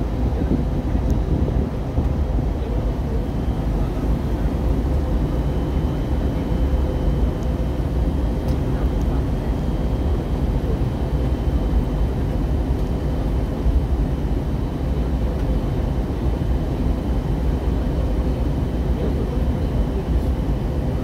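Steady low rumble of cabin noise inside an Airbus A320neo airliner on its approach: engine and airflow noise heard from a window seat. A faint steady hum runs through it, and a thin high tone joins about six seconds in.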